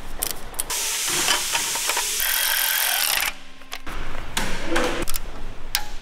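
A hand ratchet clicking and metal tools clinking while bolts are undone on a stripped-down BMW V8 engine. There is a cluster of quick clicks at the start, a couple of seconds of steady hissing noise in the middle, and more clicks and clatter near the end.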